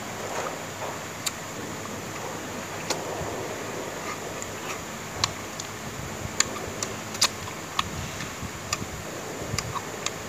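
Eating sounds from a meal of boiled chicken leg and rice: scattered sharp clicks and small taps as the chicken is pulled apart by hand and picked at with chopsticks on the plate, along with chewing, over a steady background hiss.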